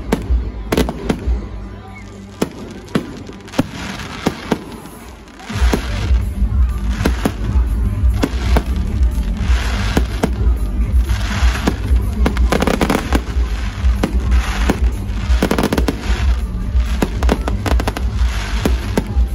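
Fireworks display: a string of sharp bangs and crackles. It eases for a few seconds, then from about five seconds in turns into a dense barrage of bangs with a deep rumble and crackling.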